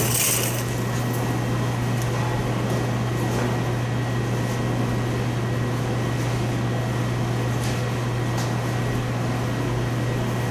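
Steady low drone of a running fan, with a few faint clicks of parts being handled.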